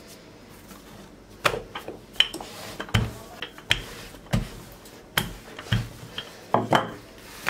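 Wooden rolling pin rolling out soft yeast dough on a silicone mat: a series of knocks and thumps, about one or two a second, starting about a second and a half in.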